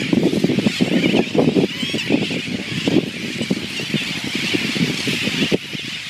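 A crowded seabird colony of brown (common) noddies and sooty terns calling all at once: a constant din of many overlapping harsh, squealing cries, with short low croaks breaking through.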